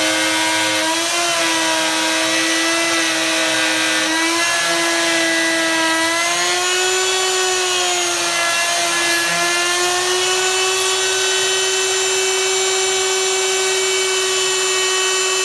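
DeWalt plunge router running at full speed while its bit cuts a mortise in a wooden beam, a steady high whine over the rush of the cut. Its pitch wavers slightly in the first half as the bit is fed through the wood, then holds steady.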